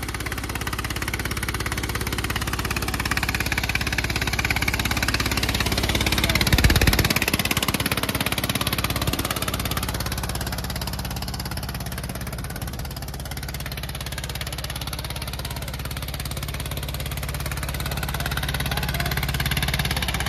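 Eicher diesel tractor engine running hard under heavy load, dragging a disc harrow through soil, with a steady low exhaust beat. It surges louder about six and a half seconds in.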